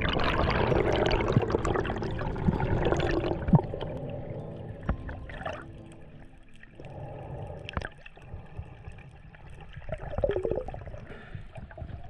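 Underwater sound through an action-camera housing: rushing, gurgling water for the first few seconds, then quieter water noise with scattered clicks and pops.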